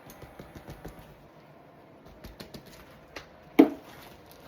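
A scatter of light clicks and taps, then one sharp knock about three and a half seconds in.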